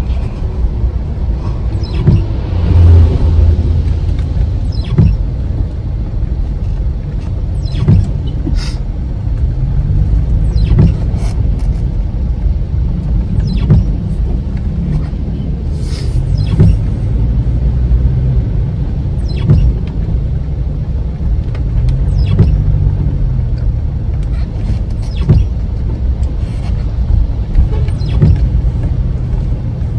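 Car driving on a rainy road: a steady low rumble of engine and tyres, the engine note rising and falling several times, with scattered short knocks.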